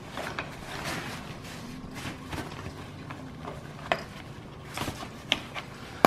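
Handling noise from a Nuna Mixx 2 stroller seat being worked open by hand: irregular knocks and rubbing, with several sharp plastic clicks in the second half, the loudest right at the end.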